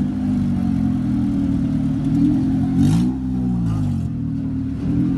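Car engine idling with a steady low hum, blipped about three seconds in so the pitch rises and falls back.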